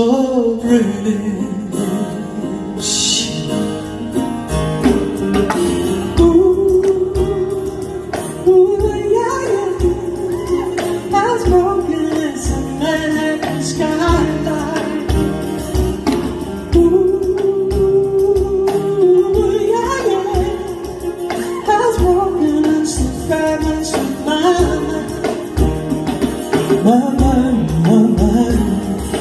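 Live female singing with acoustic guitar and hand drum: a gliding, sustained vocal melody over guitar chords and a regular beat on the drum.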